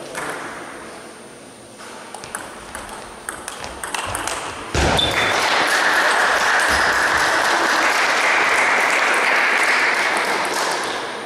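Table tennis ball clicking off bats and table during a rally, a few sharp ticks a second apart. About five seconds in, a sudden thud is followed by a loud, steady rushing noise that lasts about six seconds and fades near the end.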